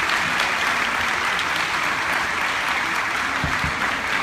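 Crowd in a large sports hall applauding steadily.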